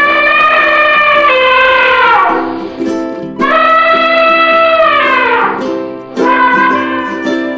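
Elephant trumpeting three times, two long calls and a shorter third, each rising a little then falling away, over light ukulele background music.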